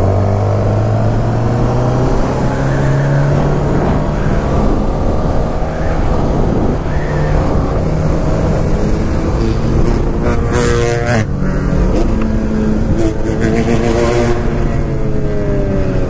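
Honda CBR sport bike's inline-four engine pulling away and accelerating, its pitch climbing and then dropping at each gear change. Two brief rushes of noise come about ten and thirteen seconds in.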